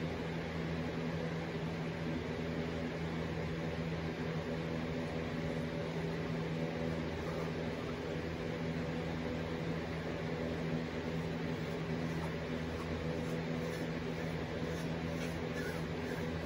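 Steady mechanical hum of a running household appliance, with a constant low drone and an even airy hiss; a few faint light clicks near the end.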